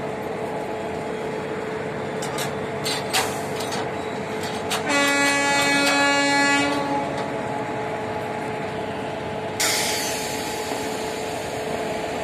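Indian Railways WAP-4 electric locomotive sounding its air horn in one steady blast of about two seconds, over a steady hum from the standing locomotive. Some seconds later comes a sudden hiss of air that fades away.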